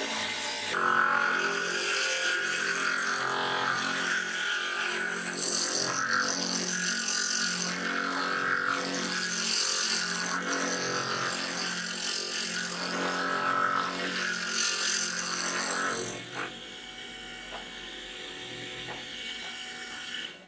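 Homemade oscillating spindle sander with its drum spinning on a 24 V DC motor, and a piece of wood pressed against the sanding sleeve. The sanding hiss swells and fades with each pass over a steady motor hum. About sixteen seconds in, the sanding stops and the sander runs on more quietly.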